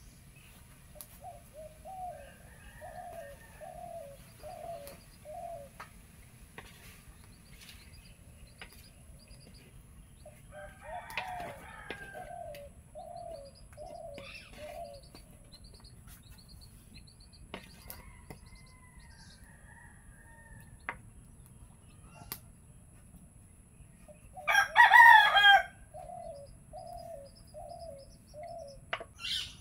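Domestic fowl calling: runs of five or six short, evenly spaced notes come three times, and about 25 seconds in a rooster crows loudly for about a second. A few faint knocks are heard in between.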